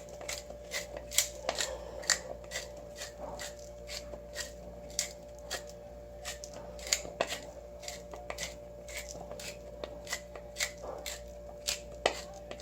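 Pepper being put onto raw chicken drumsticks: short, dry, scratchy clicks coming irregularly, a few a second.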